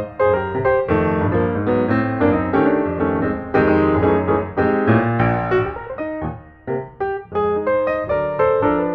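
Background piano music: a melody of quick notes over low chords at a steady moderate pace.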